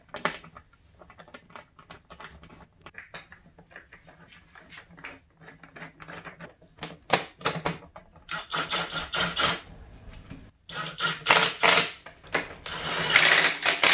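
Socket ratchet clicking in quick runs of rapid clicks as the shroud bolts are driven into the repaired tank nuts, which now hold without spinning.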